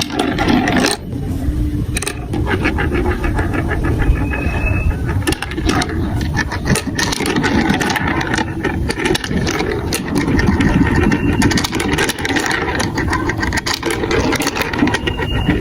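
Marbles rolling and clattering down a plastic building-block marble run: a steady rumble with many quick clicks and knocks.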